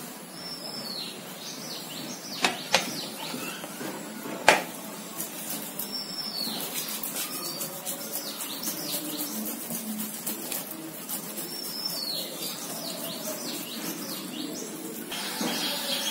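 Paneer being rubbed over a stainless-steel hand grater: quick, repeated scraping strokes from about five seconds in, after a few sharp knocks of the grater. Birds chirp in short falling notes in the background, in three separate bursts.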